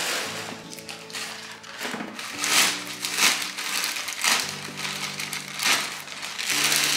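Clear plastic bag crinkling in several bursts as a boot is pulled out of a box and handled, over soft background music.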